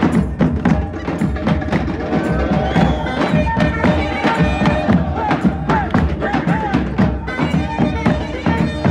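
Live Azerbaijani folk music: a shrill reed pipe plays an ornamented melody over a steady driving beat from a large stick-beaten nagara drum and frame drums.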